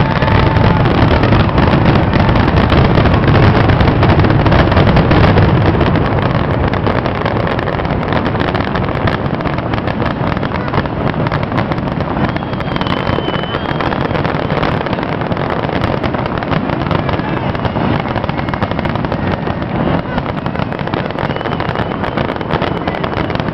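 Fireworks going off in a continuous barrage: dense rapid bangs and crackling over a deep rumble, loudest in the first six seconds or so.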